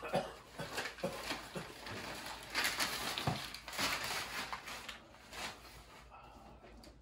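Wrapping paper being torn and crumpled as a gift is unwrapped: a run of rustling and crackling, busiest in the middle, with a few light knocks from the box. It grows quieter about five seconds in.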